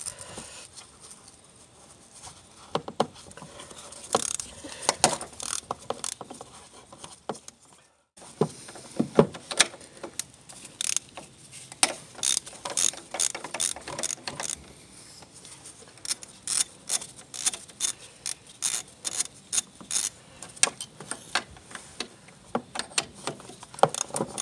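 Hand ratchet clicking in repeated runs as it turns a 12 mm socket on a long extension, loosening the lower mounting nuts of a throttle body.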